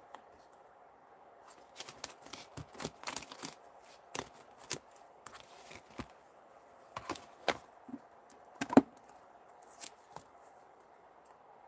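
Scattered clicks, taps and light plastic rustles of stamping supplies being handled: a clear plastic stamp case and a rubber cling stamp on a clear acrylic block. The loudest is a single sharp knock about nine seconds in.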